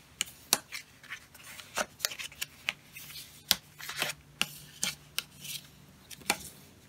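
Bone folder rubbed along the folds of cardstock to burnish the creases crisp: a run of short, uneven scraping strokes with paper handling between them.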